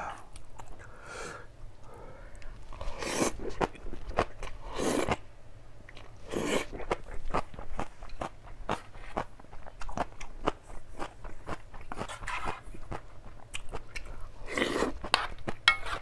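Close-miked eating: chewing and biting with many small wet mouth clicks, broken by about five louder, longer noisy bursts.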